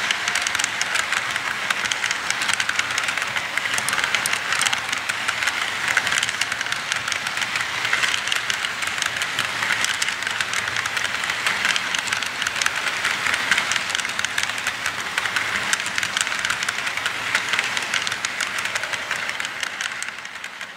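Model freight train rolling past close by: the cars' small metal wheels run over the track in a steady, dense clicking rattle, fading near the end.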